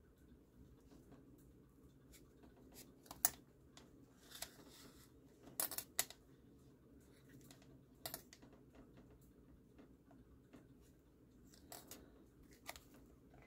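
Faint paper handling during hand-sewing of a journal binding: soft rustling of the paper booklet and thread with a handful of small, sharp taps and clicks scattered irregularly, the loudest about three, six and eight seconds in.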